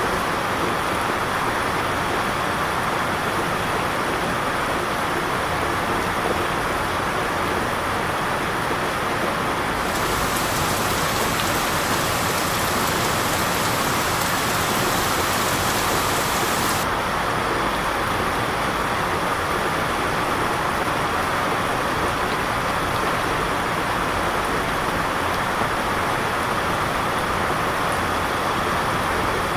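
Steady rain falling, an even hiss that turns brighter and sharper from about ten seconds in to about seventeen.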